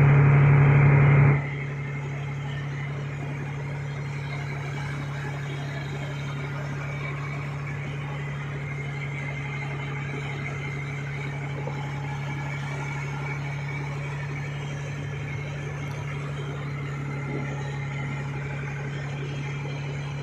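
Fishing boat's engine running steadily at low speed under tow load, with a constant low hum over wind and water noise. It is louder for about the first second and a half, then settles to a steady level.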